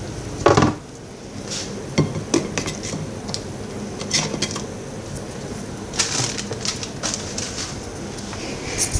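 A utensil knocking and scraping against a plate, with a handful of scattered clinks.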